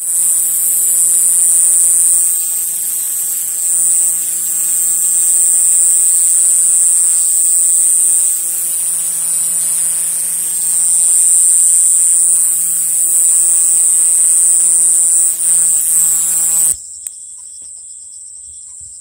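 Pseudorhynchus japonicus, a large conehead katydid, singing close by: a loud, continuous high-pitched buzz with a low hum beneath it. It stops abruptly a couple of seconds before the end.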